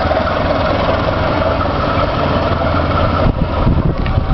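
Steady drone of diesel engines from a diesel-electric locomotive and a standing passenger train. About three seconds in the sound turns rougher, with an uneven low rumble.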